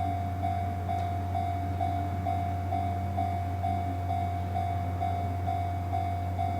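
An electronic warning tone pulsing about twice a second over a steady low rail-vehicle drone.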